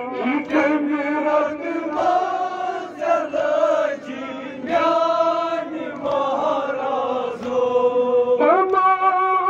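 Noha being chanted, a Shia lament for Muharram: many men's voices sing the lines together, and about eight and a half seconds in a single amplified lead voice takes up a long held note again.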